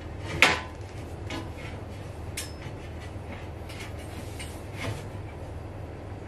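A sharp knock about half a second in, then a few faint taps and clicks, as a glass table top is set and adjusted on its metal frame.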